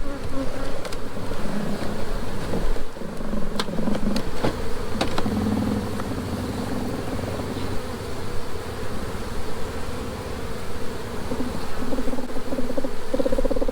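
Honey bees from an opened hive buzzing, the hum wavering in pitch, with a few short clicks about four to five seconds in.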